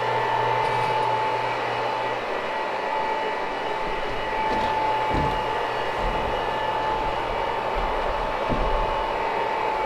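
Electric carpet-cleaning machine running steadily: a motor drone with a constant high whine, and a few low thumps as it is worked over the carpet.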